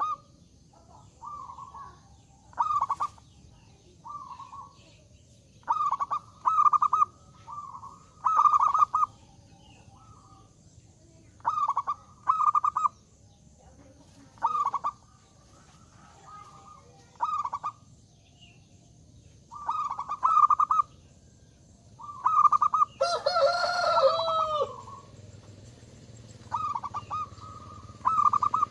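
Zebra dove (perkutut) cooing, short rolling phrases repeated every second or two. About two-thirds of the way through, another bird gives one longer, louder call with a rich, arching tone.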